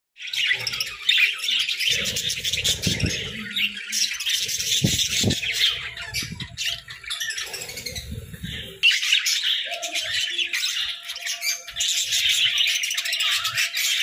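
A flock of budgerigars chattering: a dense, continuous mix of chirps, warbles and squawks. Low rumbling noise sits under the first part and drops away suddenly about nine seconds in.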